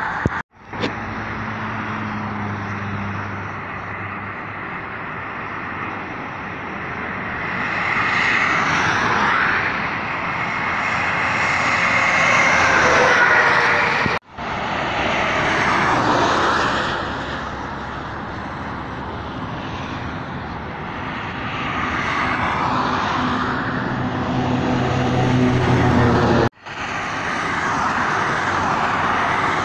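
Highway traffic passing close by, trucks and cars: tyre and diesel engine noise swells as each vehicle nears and fades as it goes. It is loudest a little before the middle and again near the end, with a low truck engine hum under the second swell. The sound breaks off sharply three times, at cuts between shots.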